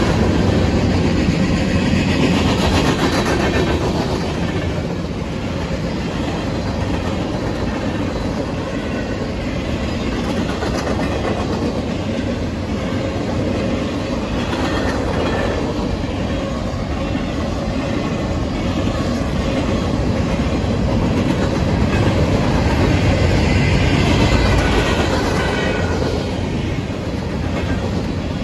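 Freight cars of a mixed manifest train rolling past at speed: a steady heavy rumble of steel wheels on rail, with rhythmic clacking over the rail joints.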